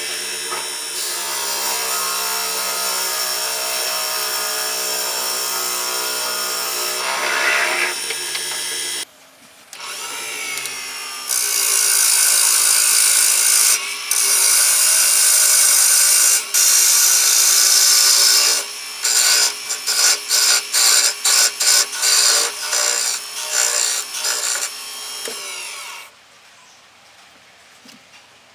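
Wood lathe turning a wooden box blank while a cutting tool works it: first a boring tool held into the end of the spinning piece, then a turning tool cutting a dark wood blank with a loud, steady scraping hiss over the motor's hum. Later the tool is touched to the wood in short repeated strokes, about two a second, and the cutting stops a couple of seconds before the end.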